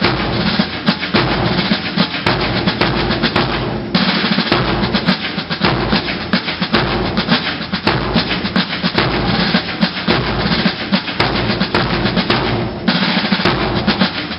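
Military marching band drums playing: snare drum rolls and bass drum beats in a steady rhythm, with a held low note sounding underneath.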